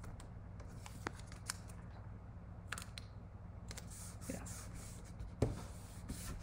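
Strips of tape and paper being handled and pressed down by hand onto a gridded craft mat: scattered light clicks and paper rustles, with a louder tap about five seconds in.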